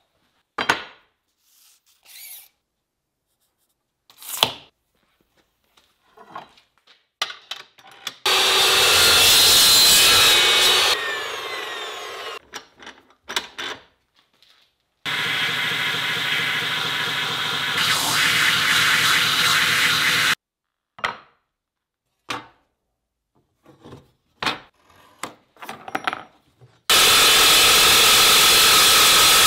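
An Evolution metal-cutting chop saw runs in three bursts, cutting steel bar. About eight seconds in it starts and then winds down. It runs again for about five seconds from about fifteen seconds, and starts once more near the end. Between the runs come short clicks and knocks from handling the steel and the clamp.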